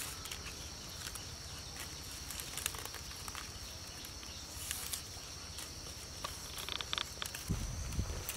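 Thin wild-vine strips rustling and clicking as they are handled and woven into a basket base. A steady high insect drone runs underneath, and a low rumble comes in near the end.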